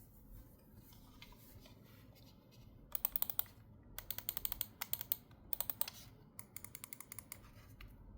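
Mofii Chocolate Sweet wireless keyboard being typed on. A few light taps come first, then several quick runs of key presses from about three seconds in, ending shortly before the close.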